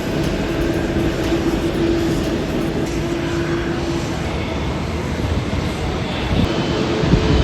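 Jet airliner engines running, a steady rush of noise with a low held tone that fades about halfway through; a slightly higher tone comes in near the end.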